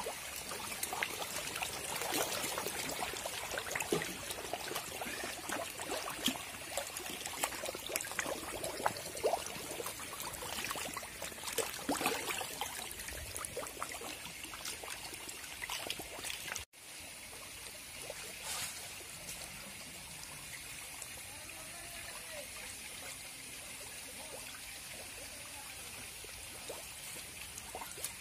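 A crowded mass of hybrid magur catfish thrashing at the pond surface while feeding, a busy, irregular patter of many small splashes. About two-thirds of the way through the sound cuts out for a moment and returns as a quieter, steadier water noise.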